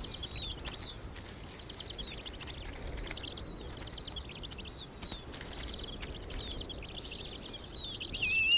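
Snowy owl chicks begging with high-pitched calls as they are fed. The calls are short, falling and trilled, and come about once a second.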